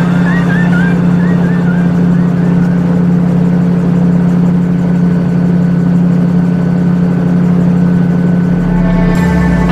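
Gyroplane's engine and pusher propeller droning steadily at a constant pitch in flight. Music comes in near the end.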